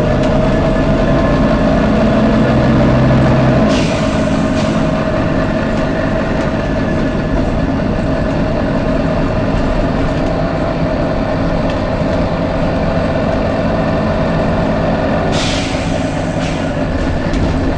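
Volvo B9TL bus running with a steady drone. Its air system gives short 'tsh' hisses, a couple about four seconds in and several in quick succession near the end.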